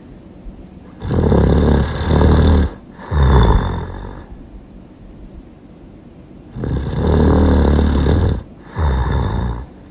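Loud snoring, two breath cycles: each is a long snore of nearly two seconds followed at once by a shorter one, with a pause of about two seconds between the cycles.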